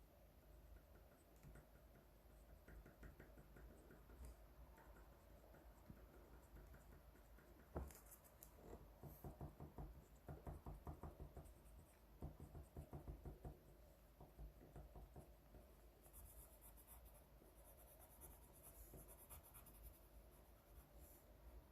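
Faint scratching of a drawing tool on paper, with short strokes throughout. A single sharp tap comes about a third of the way in, followed by two runs of quick back-and-forth shading strokes at about five a second.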